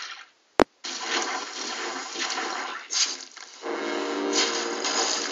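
A single sharp click, then a dense rushing, water-like noise like a flush, with a louder swell about three seconds in. A steady low tone joins the rush about three and a half seconds in.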